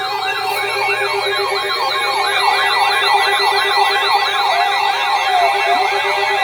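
Siren-style emergency alert tone, warbling quickly up and down about three times a second. It is the alarm that marks a flash flood warning being issued.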